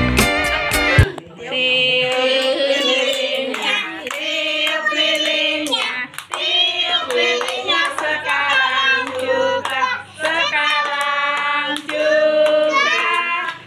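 A group of children singing a birthday song together and clapping along. Guitar music plays for the first second and then stops.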